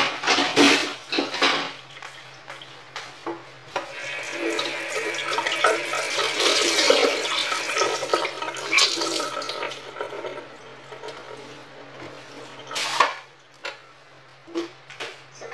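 Kitchen tap running into a stainless steel sink as something is rinsed under the stream, with a few clatters of dishes and utensils at the start and a single knock near the end.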